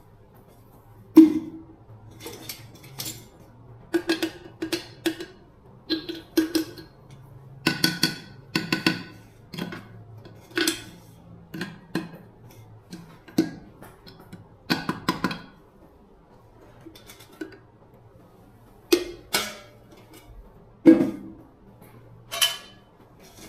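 Metal parts and tools being handled on a hard surface: irregular clinks and knocks, some with a short metallic ring.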